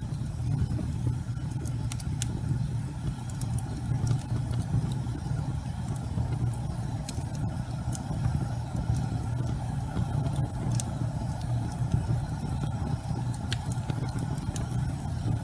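Logs burning in a fireplace: a steady low roar of flames with scattered sharp pops and crackles from the wood.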